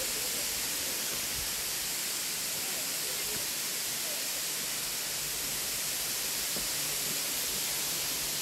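Tall plunge waterfall: water falling down a cliff face and splashing at its base, a steady, even hiss heaviest in the high range.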